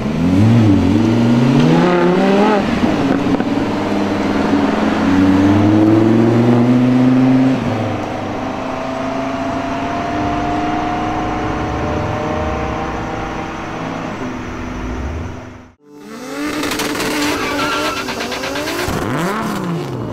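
Lamborghini Huracán LP610-4s' V10 engines accelerating hard away, the pitch climbing in several rising sweeps with drops between them as the gears change, then easing to a quieter, steadier drone that slowly rises. About three-quarters of the way through the sound cuts off abruptly, and other engine sound follows.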